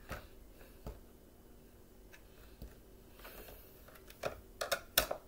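Scattered clicks and knocks of the plastic parts of a Bissell PowerForce Bagless vacuum being handled and worked on with a screwdriver, a few at first, then a quick run of sharper clicks near the end.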